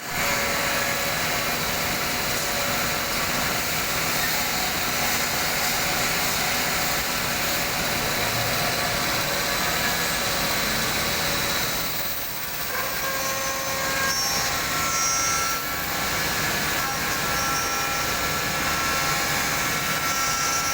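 Woodworking CNC router running: a steady, loud machine noise carrying several thin, steady whining tones, which dips briefly about twelve seconds in, after which the tones shift in pitch.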